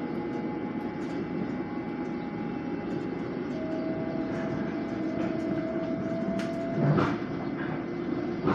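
Inside an LIRR M7 electric multiple-unit car running between stations: a steady rumble of wheels on rail with a faint steady whine. Scattered light clicks, and a sharp knock about seven seconds in.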